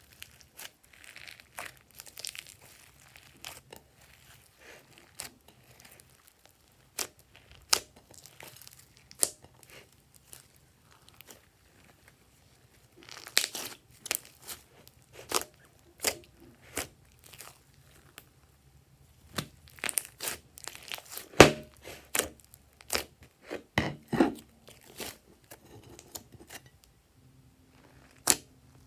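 Glossy slime mixed with clay and powder being squished and kneaded by hand: irregular sticky pops and crackles. They come sparsely at first, then thicker and louder from about halfway through.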